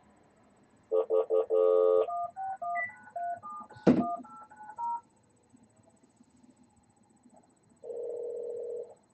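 Panasonic KX-TGF344B phone base dialing through its speaker: a few short beeps, then a quick run of touch-tone (DTMF) dial tones as the number goes out, with one sharp knock partway through. Near the end a single steady tone sounds for about a second.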